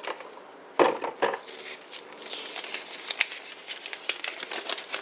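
Paper packaging and a folded pocket guide being handled, rustling and crinkling, with a brief louder sound about a second in and a steady run of small crackles from about two seconds in.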